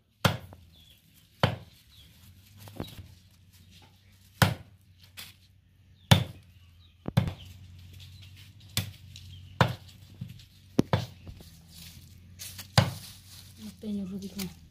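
A large knife chopping raw chicken on a wooden chopping block: about a dozen sharp, separate chops at an uneven pace, roughly one a second.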